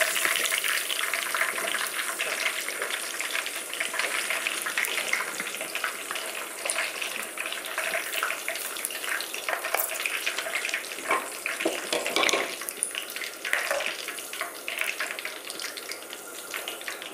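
Mushrooms deep-frying in hot spiced oil: a steady sizzle with fine crackling, with a few brief clicks around the middle.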